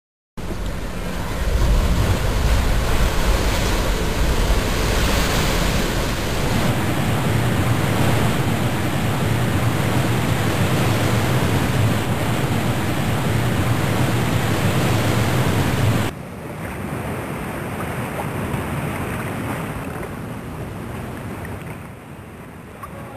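Sea surf washing up a sandy beach, with wind buffeting the microphone as a heavy low rumble. About two-thirds of the way through it cuts off suddenly to quieter surf without the rumble.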